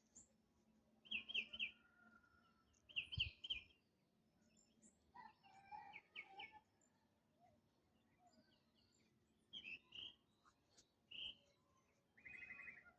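Birds calling in the countryside: short groups of quick, high repeated chirps every few seconds from more than one bird, with a rapid trill near the end. A soft low thump comes about three seconds in.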